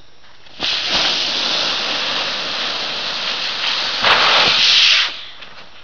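Sled sliding down a snowy, icy slope: a steady hiss of the sled over the snow that starts about half a second in, grows louder near the end and then fades away.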